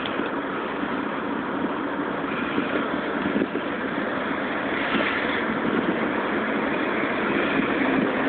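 Diesel freight locomotive running as it approaches, a steady engine rumble that grows a little louder over the last few seconds.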